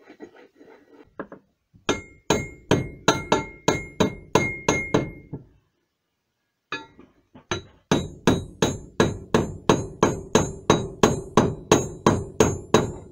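Hammer blows driving a sealed ball bearing into a new plastic drive-belt idler pulley on a wooden block: two runs of quick, even taps, about three or four a second, with a short pause between them. The first run carries a faint metallic ring.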